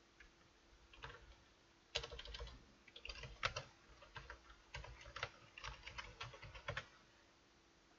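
Computer keyboard being typed on: an uneven run of faint key clicks that stops shortly before the end.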